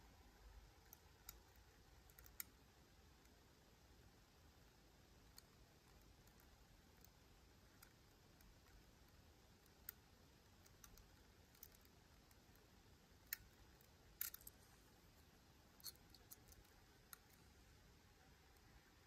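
Faint, sparse metallic clicks and ticks from a lock pick working the pins of a Miwa U9 lock cylinder, at irregular intervals over near silence, the sharpest about two-thirds of the way through.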